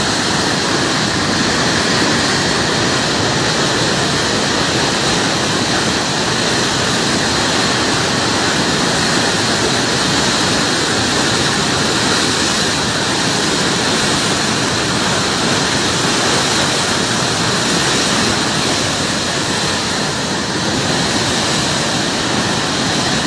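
Loud, steady rush of Indus floodwater pouring through the barrage and under the bridge, an even noise with no breaks.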